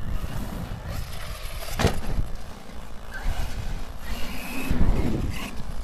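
Arrma Nero 4WD BLX monster truck driving on gravel and tarmac, its brushless motor whining under throttle about four seconds in. A sharp knock comes about two seconds in.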